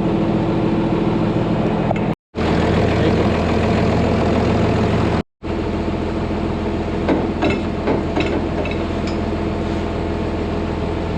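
Tractor engine idling steadily, with a few light metallic clinks in the second half. The sound cuts out completely twice, for a moment each time.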